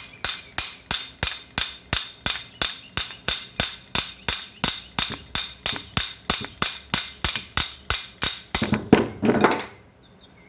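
Steady hammer blows on metal, about three and a half strikes a second, each ringing briefly, ending in a louder, rougher clatter near the end before stopping.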